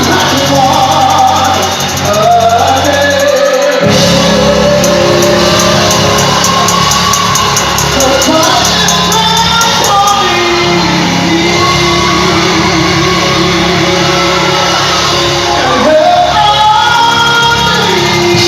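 Live gospel worship music: a band with sustained bass notes under a lead vocalist singing and shouting phrases, with reverberation from a large hall. A fuller bass and a fast steady high ticking come in about four seconds in.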